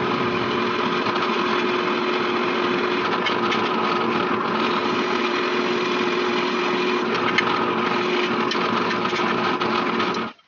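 Benchtop drill press running steadily, its bit drilling a hole through a small metal trigger part, with a few light clicks of the bit on the metal. The sound cuts off abruptly near the end.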